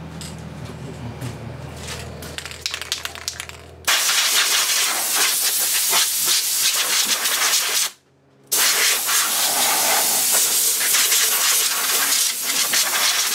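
A small Evinrude 3.3 hp outboard runs at idle for about four seconds and then stops abruptly. An aerosol spray can then hisses onto its powerhead in two long bursts of about four seconds each, with a brief break between them.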